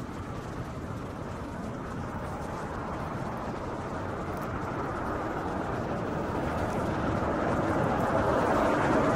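Road traffic noise, a vehicle approaching and growing steadily louder toward the end.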